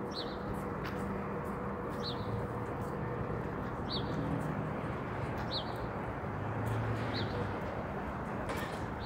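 A small bird repeating a short, high, downward-sliding call five times, about every two seconds, over the steady traffic noise of a city street.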